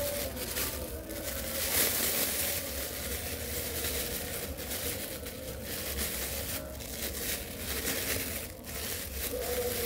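Clear plastic bag crinkling and rustling as hands squeeze and knead a soft avocado-and-flour bait dough inside it: an irregular, continuous run of rubbing and crinkling.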